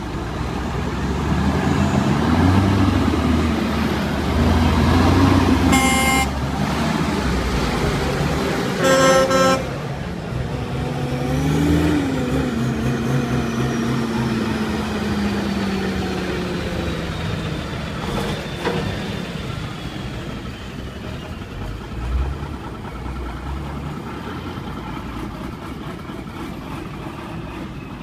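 Heavy trucks pulling away in slow traffic, their engines rising and falling in pitch as they accelerate and shift, with two short horn toots about six and nine seconds in. A faint high whine falls slowly in pitch through the middle.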